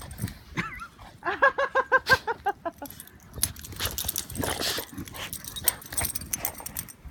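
A dog gives a quick run of about nine short, high yips, then noisy scuffling and snuffling as it noses and plunges into deep snow.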